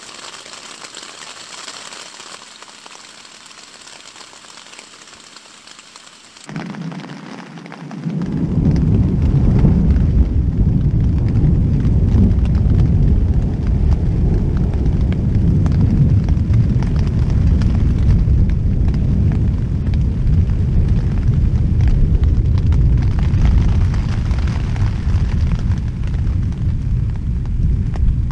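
Thunderstorm: a steady hiss of rain, then, about six seconds in, a sudden change to a much louder, deep, continuous rumble of the storm's wind and heavy rain that lasts the rest of the time.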